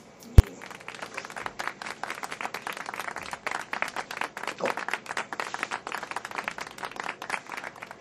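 A sharp knock, then a crowd's applause: a dense patter of many hands clapping that fades away near the end.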